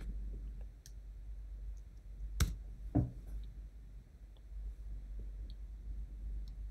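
Two clicks about half a second apart from working a computer as a typed message is sent, the first sharper and louder, over a steady low hum.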